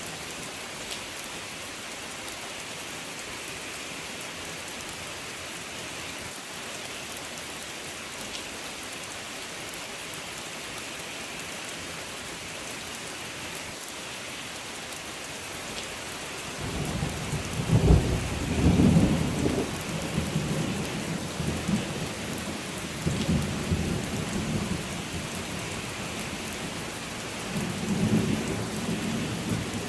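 Steady rain falling. A little past halfway, a roll of thunder rumbles in, loudest a couple of seconds after it starts, and rumbles on, swelling again near the end.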